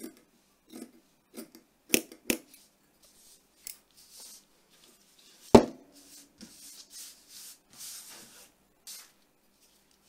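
Steel scissors snipping through a fabric strip, a few crisp cuts with the two loudest close together about two seconds in. A single sharp knock on the table about halfway, then fabric rustling as the strip is handled.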